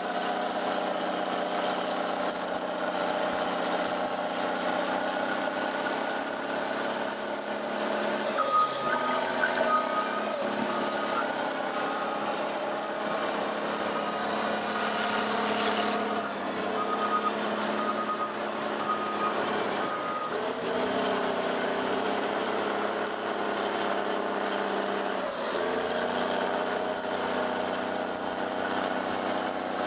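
Heavy diesel earthmoving machinery running steadily, its engine note shifting a few times as the load changes. A reversing alarm beeps repeatedly from about 8 seconds in until about 20 seconds in.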